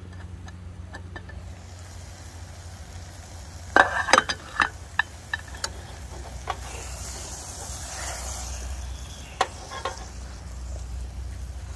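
A few sharp metal clinks and knocks about four seconds in, as the camping pot's lid comes off and the spatula goes against the pot. Then vegetables sizzle in the hot pot as a silicone spatula stirs them, over a steady low hum.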